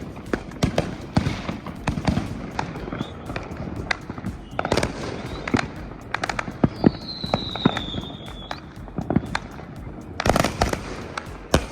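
Fireworks going off: a rapid, irregular series of bangs and crackles, thicker in two clusters, with a falling whistle about two-thirds of the way through.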